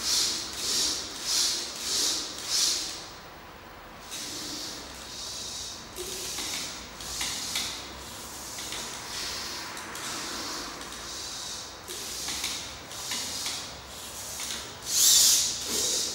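Servo motors of a six-legged walking robot whining as its legs move: high-pitched pulses about every 0.6 seconds with the strides, a steadier whine in the middle, and a louder burst near the end.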